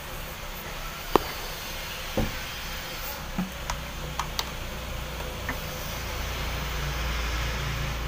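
A few sharp clicks and knocks as a refrigerator's power cord and plug are handled and plugged in, the first one the loudest. Under them runs a steady low hum that grows louder from about three seconds in.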